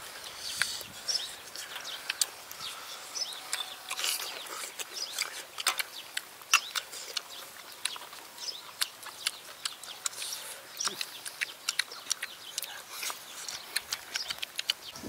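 Grilled snail shells clicking and tapping as they are picked up off a metal grill and the meat is pulled out, many irregular sharp clicks. Birds chirp faintly in the background.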